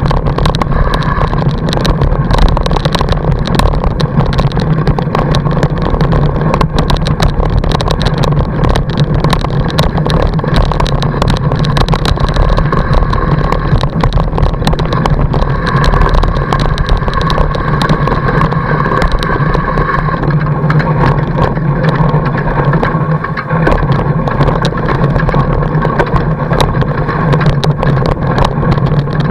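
Fat-bike tyre rolling over packed snow, heard through a camera mounted on the bike: a loud, steady rumble with continuous crackling and rattling.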